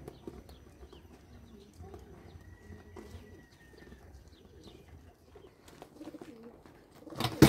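Pigeons cooing low, with faint scattered clicks and a thin, high whistle-like tone held for about a second and a half. Near the end comes a brief, loud, sudden thump, the loudest sound.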